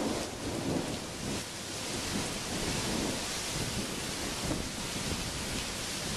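Heavy wind-driven thunderstorm rain: a steady hiss with an uneven, gusting low rumble underneath.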